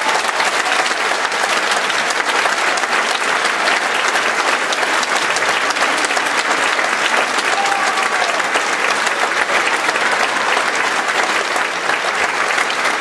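Theatre audience applauding, a dense, even clapping that holds steady throughout.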